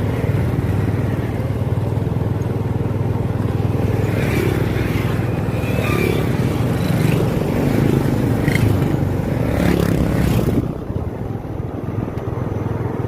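Motorbike engine running steadily under way, with wind and road noise; the higher hiss drops away near the end.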